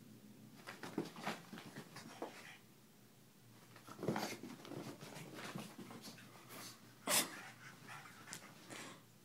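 A pug darting and pouncing on carpet after a laser dot, making a string of short, sharp scuffling noises at irregular intervals.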